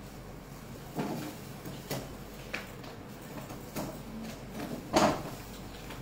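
A few soft knocks and clicks from a marker pen writing on the lid of a plastic food container, the loudest about five seconds in.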